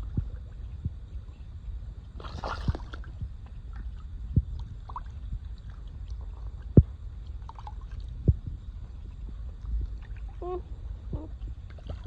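A beaver's short whining calls, three of them near the end, among scattered sharp knocks and a brief watery rush about two seconds in.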